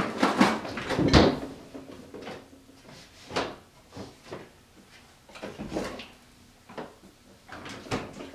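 Kitchen handling noises: a loud knock right at the start and another about a second in, then a scatter of lighter clicks and knocks as a refrigerator door is opened and a carton of milk is set down on the counter.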